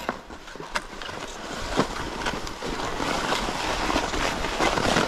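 Short forest skis (sliding snowshoes) swishing and scraping over snow, with a few sharper crunches.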